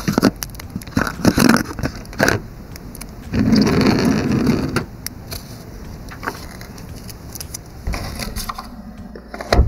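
Handling noise of a foil-wrapped chocolate bar and its cardboard box: small clicks, scrapes and crinkles as the bar is slid out, with a louder stretch of foil and paper crinkling about a third of the way in. A sharp click near the end.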